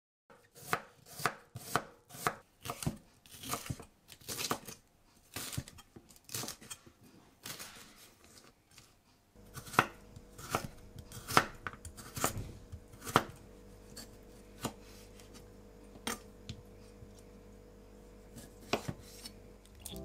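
Kitchen knife slicing vegetables on a wooden cutting board: sharp knocks of the blade on the board, two to three a second at first, then slower single cuts about once a second after halfway. A faint steady hum comes in about halfway.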